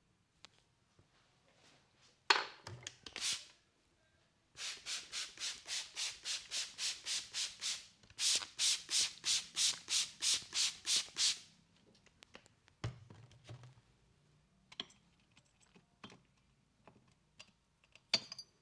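Palms rubbed briskly together in two runs of about three seconds each, about four strokes a second, as in warming the hands for an acupressure eye massage. A sharp smack comes about two seconds in, the loudest sound, and a few light taps and clicks follow the rubbing.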